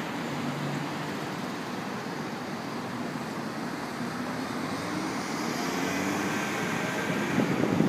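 Steady outdoor city traffic noise, a constant hum of vehicles with faint shifting engine tones, growing a little louder near the end.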